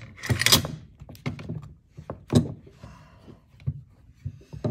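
Metal clicks and a short sliding rasp as a Galil bolt carrier is worked forward in the receiver. A few single knocks follow from a rawhide mallet tapping the carrier to try to close the bolt on a no-go headspace gauge. The bolt won't close, the sign of correct headspace.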